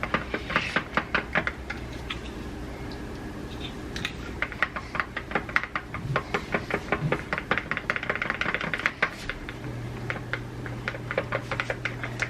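Pancake batter being stirred in a bowl, the utensil clicking rapidly against the bowl's sides in runs of several clicks a second with short pauses between.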